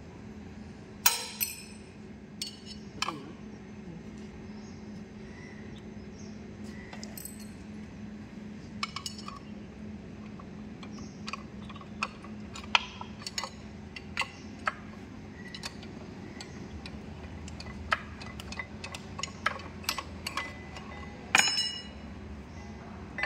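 Scattered sharp metallic clinks and taps of wrenches and steel parts being handled on the timing gear end of a stripped Cummins KT1150 diesel engine block, with a steady low hum underneath. The loudest clinks come about a second in and again near the end.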